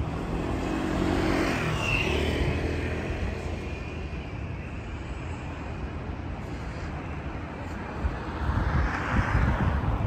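Urban traffic noise with vehicles passing: one swells and fades about two seconds in, and another builds near the end.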